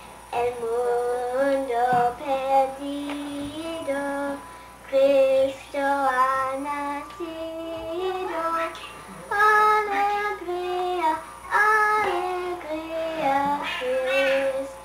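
Children singing a song, held notes in short phrases with brief breaks between them.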